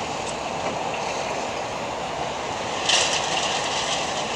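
Demolition noise from an excavator breaking up a concrete apartment block: a steady hiss and rumble, with a burst of clattering debris about three seconds in.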